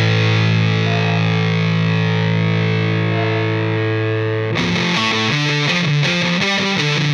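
Rock background music on distorted electric guitar: a held chord rings out, then a rhythmic riff of short chopped notes starts about four and a half seconds in.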